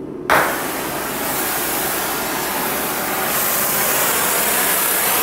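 A handheld gas torch lights with a sudden pop about a third of a second in, then burns with a steady loud hiss that grows a little stronger later on. The torch is heating a bar clamped in a vise.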